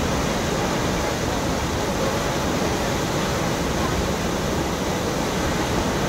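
A large waterfall's water pouring down a cliff, making a steady rushing noise.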